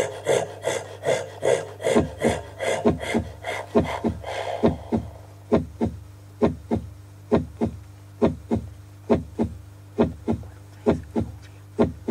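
Rhythmic rasping scrape, about three strokes a second, over a steady low hum, fading out about four and a half seconds in. From about two seconds in, short low thumps come in pairs, about one pair a second.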